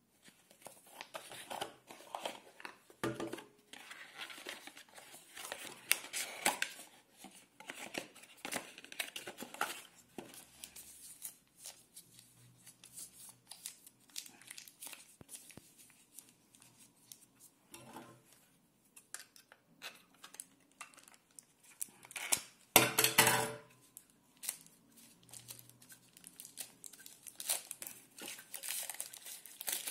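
Paper and protective wrapping rustling, crinkling and tearing in the hands as a small device is unpacked and unwrapped. The noise comes in short, irregular bursts, with one louder rip about a second long a little past two-thirds of the way through.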